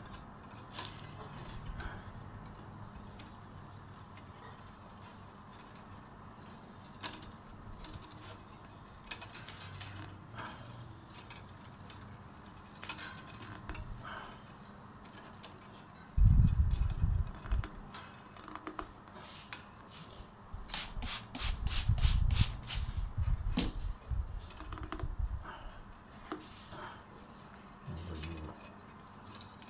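Thin bamboo strips clicking and rustling as they are hand-plaited into the bottom of a fish creel, with a quick run of ticks about two-thirds through. Dull low thumps a little past halfway and again around the quick ticks, the first being the loudest sound.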